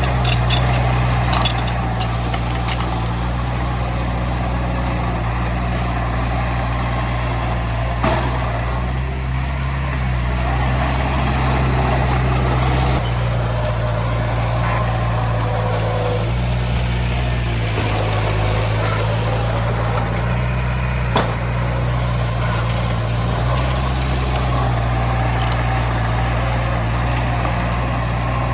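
Heavy diesel earthmoving machinery running steadily, its engine note shifting up and down several times as the load changes, with a few sharp metal knocks.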